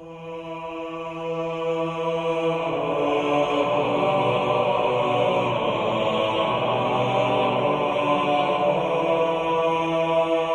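Ambient background music: a sustained drone of held tones, swelling in at the start and growing fuller about three seconds in.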